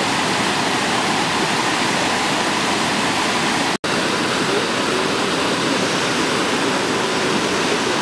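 Steady rush of a tall, partly frozen waterfall, water still pouring down between ice formations. It is briefly broken by a short gap about four seconds in.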